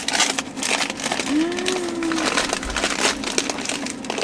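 Gift wrapping being unwrapped by hand, crinkling and rustling in quick, irregular crackles. A short, low voiced note rises and falls about a second and a half in.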